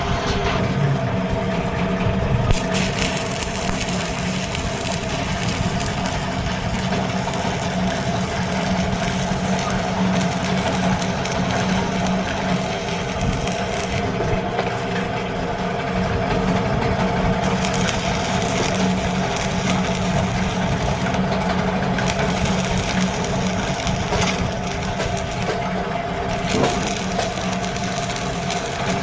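An engine running steadily at constant speed, overlaid by stretches of crackling, crunching noise that come and go every few seconds.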